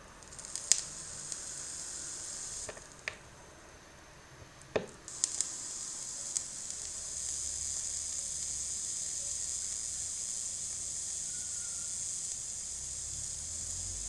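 Kanthal ribbon coil of a genesis-style rebuildable atomizer with an Ekowool wick sizzling as it fires at about 12 W and vaporises e-liquid. It sizzles for about two seconds, stops, then fires again about five seconds in and sizzles steadily. A few sharp pops or clicks come in the first five seconds, the loudest near the start.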